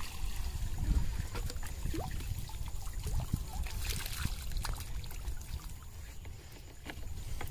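Water trickling and dribbling, with small scattered splashes and clicks over a steady low rumble.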